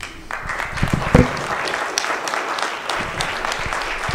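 Small audience applauding: the clapping breaks out just after the start and keeps up steadily.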